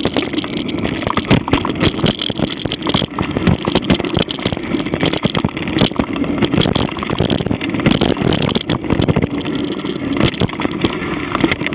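Mountain bike riding fast over a rough dirt singletrack: a steady rumble of tyres on dirt with constant rattling and frequent sharp knocks as the bike jolts over rocks and roots.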